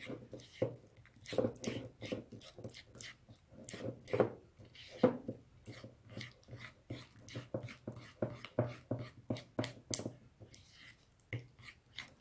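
A plastic spoon stirring pink-tinted glue slime in a bowl while activator is worked in: an irregular run of quick clicks and scrapes.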